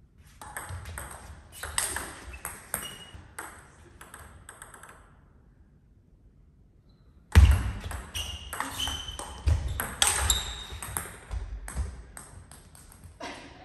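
Table tennis rallying: quick, sharp clicks of the ball off the rackets and the table in two runs, separated by a pause of about two seconds. Low thuds sound under the second rally, the loudest as it begins.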